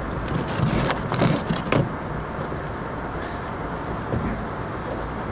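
A car being driven, heard from inside the cabin: a steady rumble of road and engine noise, with a few short knocks about a second in.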